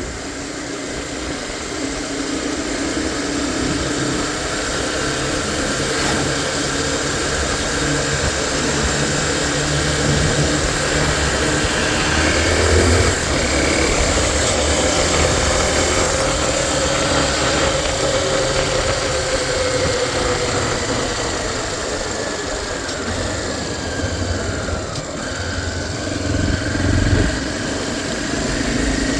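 Tornado 250 motorcycle engine running steadily, its pitch drifting slowly up and down.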